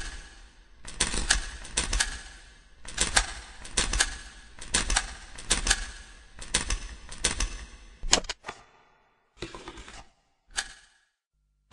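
Sharp clatter of rapid clicks in short bursts about once a second, like typing, giving way about nine seconds in to two brief bursts of hiss-like noise.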